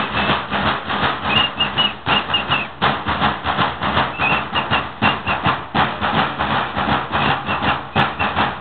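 Drums beaten in a fast, driving rhythm for a bear dance, with a whistle blown in short toots in time with the drumming.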